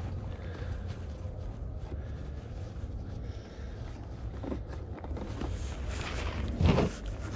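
Low, steady wind rumble on the microphone, with a short, louder rustling thump near the end as the person shifts his body.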